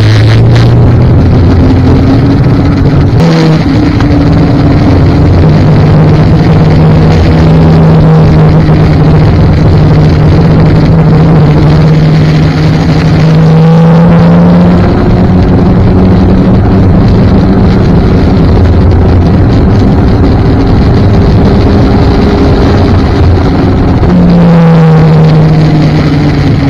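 Snowmobile engine running at speed along a trail, heard close up from the sled itself, its pitch shifting up and down a few times as the throttle changes, over a rushing noise.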